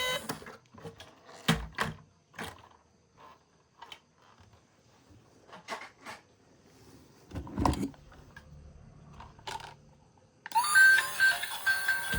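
A few scattered light knocks and clicks of plastic toy vehicles being handled, the strongest a low thump about halfway through. Background music breaks off at the start and comes back in near the end.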